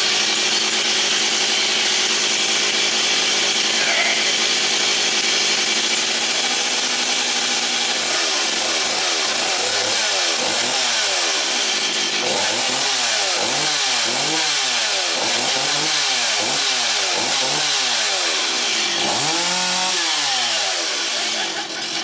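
Stihl MS260 two-stroke chainsaw running after its no-start fix. From about eight seconds in, its pitch rises and falls about once a second as the throttle is opened and let off.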